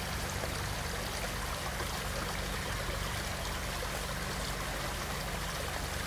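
A small garden brook with water running steadily over rounded pebbles and stones in a shallow rocky bed.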